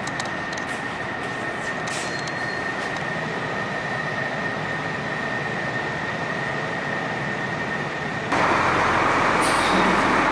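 Steady machinery drone with a constant high whine and a few light clicks in the first seconds. About eight seconds in it cuts to a louder, fuller rushing noise.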